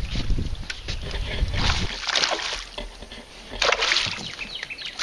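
Hooked largemouth bass thrashing and splashing at the water's surface beside the boat as it is reeled in, in two rough bursts of splashing, about two seconds in and again near four seconds. A low rumble sits under the first two seconds.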